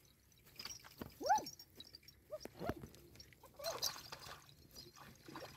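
An animal's short whining call, rising then falling in pitch, about a second in, followed by a couple of fainter short calls.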